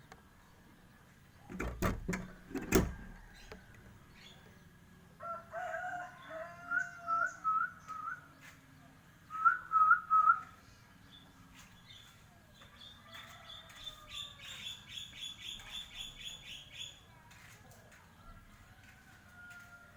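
A Borneo shama (murai batu) singing: short phrases of clear whistled notes with quick slurs, then a fast rattling trill of rapidly repeated notes. A few loud knocks come about two seconds in, before the song.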